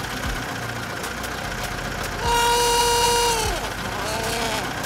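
Vehicle sound effect: a steady engine-like running sound with a long horn honk about two seconds in that sags in pitch as it dies away, then a shorter, softer honk near the end.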